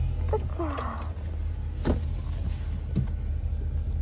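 Steady low rumble of a car heard from inside the cabin, with a few light clicks and a short falling squeal about half a second in.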